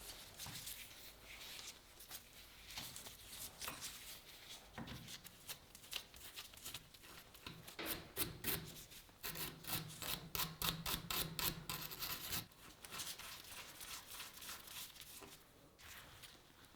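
Hand abrasion on the rusty survival knife: rubbing and rasping strokes, quickening to about four strokes a second and loudest in the middle of the stretch.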